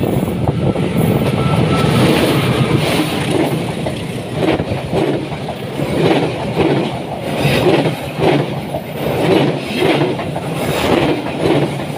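Diesel locomotive passing close by, followed by passenger coaches rolling past with a regular clatter of wheels over rail joints, a little more than one beat a second. A strong gust of wind pushed out of the tunnel by the train blows over the scene as the locomotive goes by.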